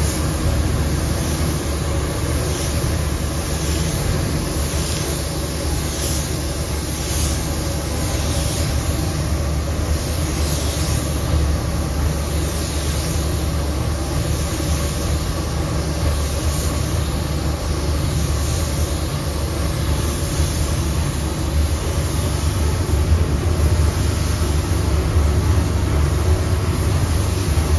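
Gravity-feed paint spray gun hissing as it sprays silver paint onto a car panel, the hiss swelling and fading about once a second with each pass, over the steady low rumble of the spray booth's air.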